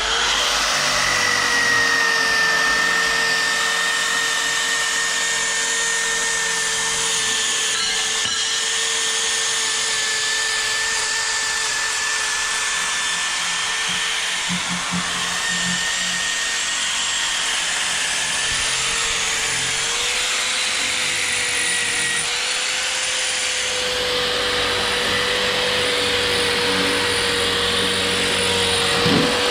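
Angle grinder running steadily against metal, grinding surface rust off a car's underside: a continuous whine over a dense hiss, the pitch lifting slightly about two-thirds of the way through.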